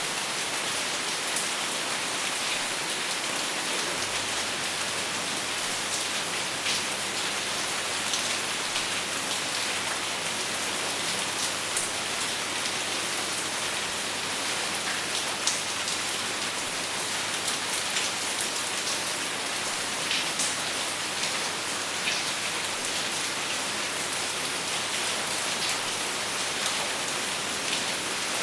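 Steady rain falling without thunder, an even hiss with scattered louder drops ticking on a surface.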